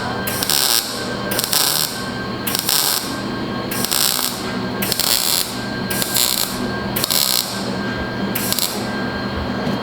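Welder laying short stitch welds on sheet metal: about ten brief hissing bursts, each under half a second, coming roughly once a second over a steady low hum.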